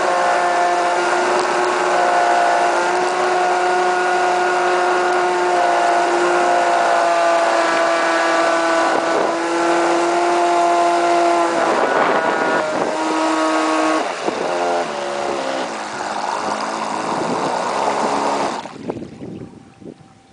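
Brushless electric motor of an RC speedboat (3300kV, 4S LiPo) whining at high speed with a steady pitch. Later it shifts up and down in pitch several times as the throttle changes, and it falls away sharply near the end.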